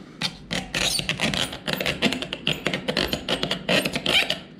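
Plastic camera-mount clamps being handled, with a dense run of clicks, rattles and scrapes.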